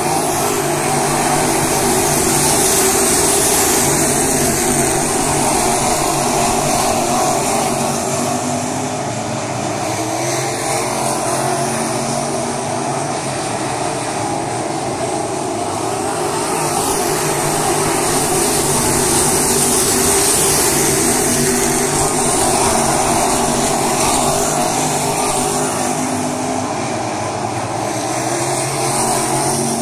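Field of crate-engine V8 dirt-track race cars running flat out around the oval, a steady drone of many engines. It swells loudest as the pack passes, about three seconds in and again around twenty seconds.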